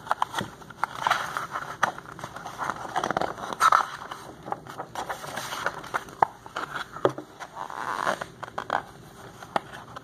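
Pages of a large picture book being turned and the book being handled: irregular crinkling and crackling of paper with many small clicks and scrapes, thinning out near the end.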